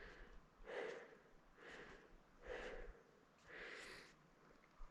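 A person breathing hard in faint, even puffs, about one breath a second: the panting of exertion climbing a steep trail.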